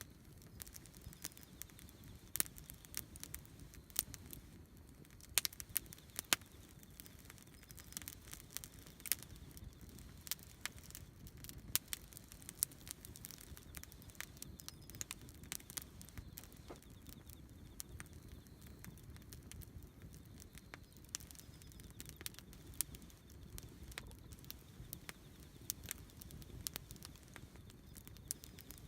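Wood campfire crackling, with many irregular sharp pops and snaps over a low steady rumble.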